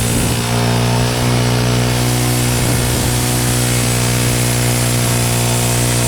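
Wood-Mizer LT15 band sawmill running steadily at an even pitch, its band blade sawing through a Douglas fir log.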